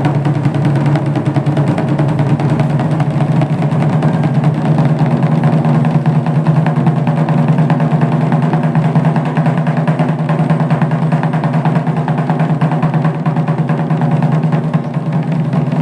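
A taiko ensemble playing barrel-shaped nagado-daiko drums with wooden bachi sticks. The strokes are fast and dense with no break, making one continuous rolling beat.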